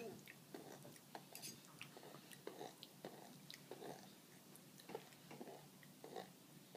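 Faint, short mouth sounds from a toddler at the dinner table, about one or two a second, with a few light clicks.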